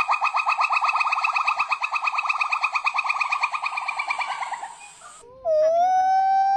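Monkey calling: a rapid chattering trill of about ten high notes a second that fades out about five seconds in, then a long, steady high call begins.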